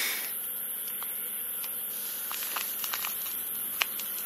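Soft crinkling and a few faint sharp ticks from a paper omikuji fortune slip being unfolded and handled, over a steady high-pitched hiss.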